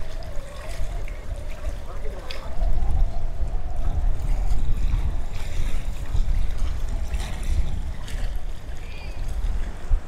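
Wind buffeting the microphone in a steady low rumble over the wash of beach surf, with people's voices.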